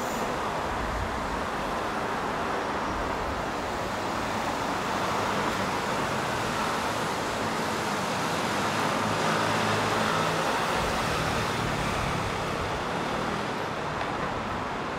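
City street traffic: a steady wash of tyre and engine noise from cars on the adjacent road, with a low engine hum swelling slightly around the middle.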